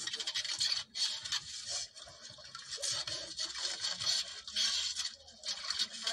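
Large knife scraping and cutting small fish on a styrofoam board, in repeated rasping strokes with a couple of short pauses.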